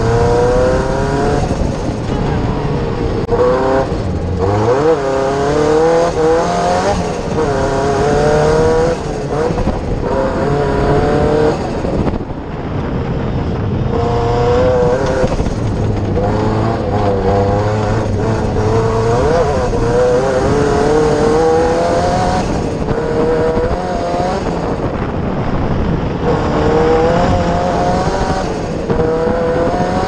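Cosworth engine of a Fiesta Proto 4x4 off-road racing car, heard from inside the cockpit at race pace: the revs climb and fall back again and again as the driver accelerates, shifts and lifts, easing off briefly about twelve seconds in.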